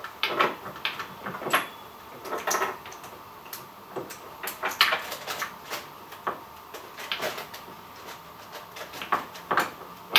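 Irregular clicks, light knocks and short scrapes of hands fitting the bar and chain onto a Baumr-AG SX25 top-handle chainsaw, working the chain around the clutch and chain catcher.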